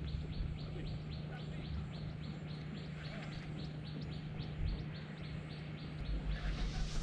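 A bird repeating one short high chirp about three times a second, over a steady low hum. The chirping stops about six seconds in, and a low rumble comes up near the end.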